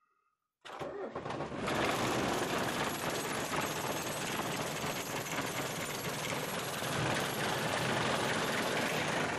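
Mercedes-Benz van's engine starting about half a second in, catching at once and settling into a steady idle, heard from inside the cab.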